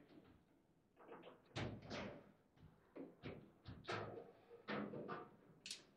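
Foosball table in play: a run of short, sharp, irregular knocks and clacks as the ball is struck by the rod-mounted figures and the rods knock.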